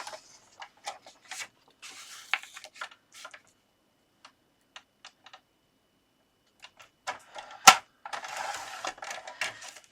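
Card stock being handled and scored on a scoring board: scattered light clicks and taps with short scraping strokes of the scoring tool along the paper, and one sharp click near the end.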